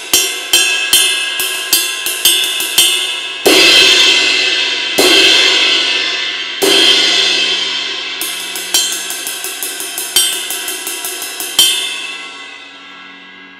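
Paiste Formula 602 cymbal struck with a drumstick: a steady ride pattern, three heavy crashed strokes around the middle that wash out, then the ride pattern again, ending with one last stroke that rings and fades.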